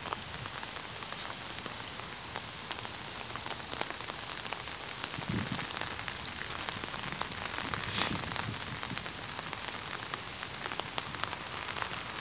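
Rain pattering steadily, a dense haze of small drop clicks, with one sharp louder click about eight seconds in.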